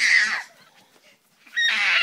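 Five-month-old baby squealing: a high-pitched screech that falls away about half a second in, a pause of about a second, then another loud squeal starting near the end.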